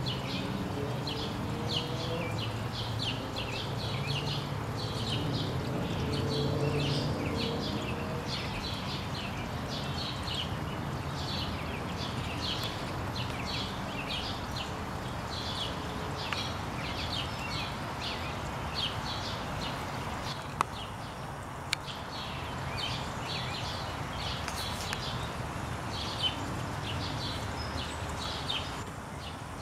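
Welsh Springer Spaniel growling low while worrying a stick, mostly in the first several seconds, with a few sharp knocks later on. Short high chirps repeat several times a second in the background throughout.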